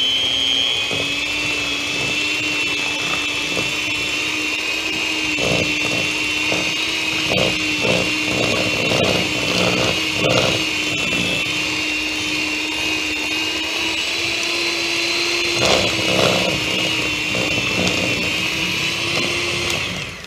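Electric hand mixer running steadily with a high-pitched whine, its beaters churning a crumbly flour-and-shortening cookie dough, with rattling at times. It switches off near the end.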